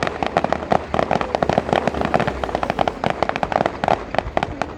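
Fireworks going off in a dense, rapid run of sharp cracks and bangs, many per second, without a pause.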